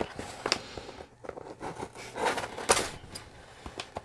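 A corrugated cardboard box being handled and tilted on a tabletop: a few short scrapes, rubs and taps of cardboard.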